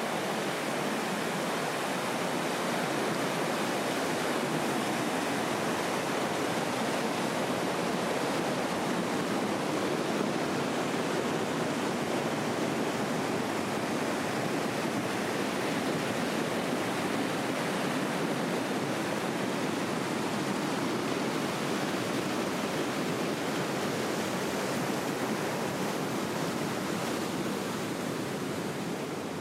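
Steady rush of a fast-flowing spring-fed stream, water tumbling without a break.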